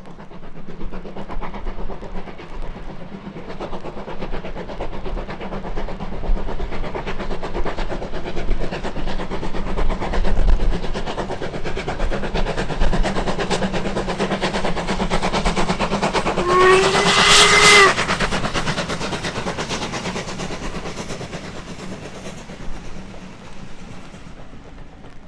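Steam locomotive hauling a train past, its exhaust beats and the wheels clattering over rail joints growing louder and then fading away. A short whistle blast sounds about 17 seconds in, the loudest moment.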